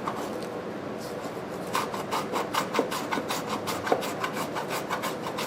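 Hand abrasive strokes rubbing over hardened filler on a small gas tank, shaping it smooth. A steady scratchy rubbing gives way about two seconds in to quick back-and-forth strokes, about four or five a second.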